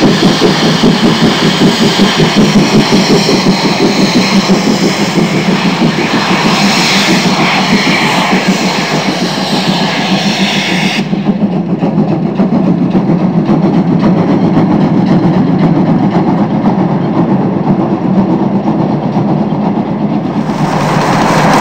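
Dubbed recording of a full-size steam-hauled freight train running, with a pulsing beat in the first half. About halfway through the sound turns duller as the high end drops away abruptly, and it grows louder near the end.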